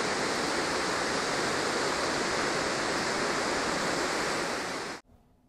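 Steady rushing of a river running over rocks, a constant even hiss; it fades and cuts off to silence about five seconds in.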